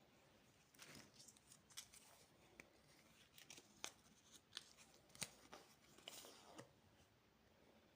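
Candy packaging being opened by hand: faint crinkling and tearing with a run of sharp clicks, starting about a second in and stopping near the end.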